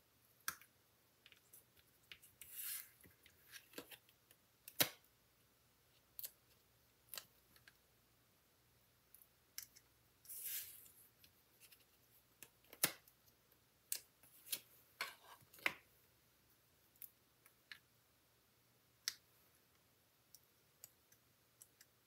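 Faint handling of paper and cardstock die-cut pieces: scattered small clicks and taps, with two short rustles about three seconds in and about ten seconds in.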